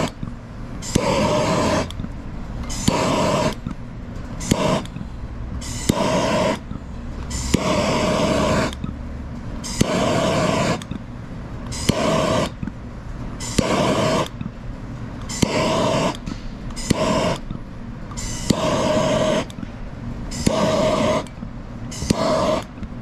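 Handheld propane torch flame rushing as it is swept over window tint film to heat-shrink it, while a hard card is pressed and dragged across the film. The sound comes in repeated strokes, about one every one to two seconds, over a steady low rumble.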